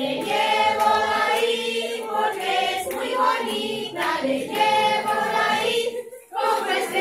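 A group of adult voices singing together in held phrases, with a brief break about six seconds in.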